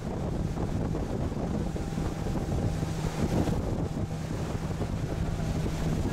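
A boat's motor running steadily under way, giving a constant low hum, with wind buffeting the microphone.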